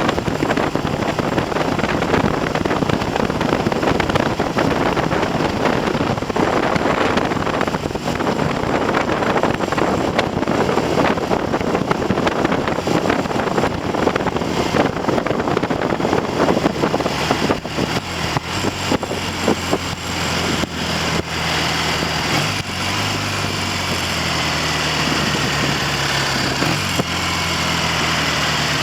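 Wind noise on the microphone over a Triumph TR6's 650 cc parallel-twin engine during a ride. About twenty seconds in, the wind falls away as the bike slows, leaving the engine running steadily at low revs. It is being run in after a top-end rebuild with new pistons and rings.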